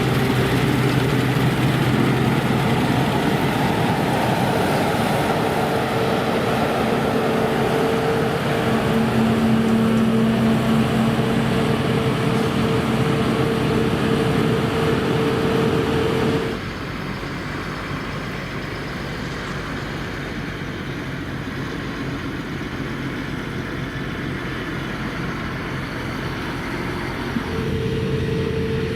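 Claas Lexion combine harvester running under load while harvesting: a steady engine and machinery drone with a constant whine. About halfway through the sound abruptly becomes quieter and duller, and the louder drone with its whine comes back near the end.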